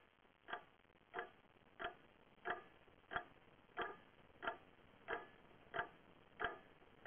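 Clock ticking steadily and faintly, about three ticks every two seconds.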